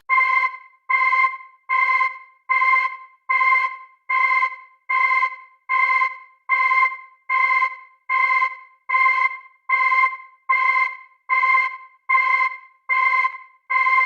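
Electronic emergency-alert beep: the same chord of steady tones sounded over and over, a little more than once a second, each beep starting sharply and fading quickly into a short silence.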